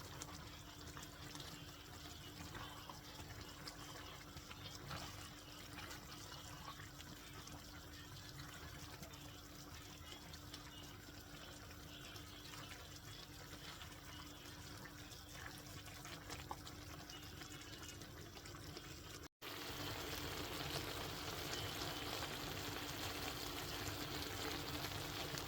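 Steady watery hiss with a low steady hum under it. After a cut about 19 seconds in, the noise is louder.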